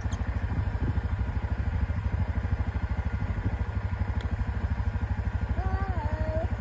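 ATV (four-wheeler) engine running steadily with an even, rapid low chug.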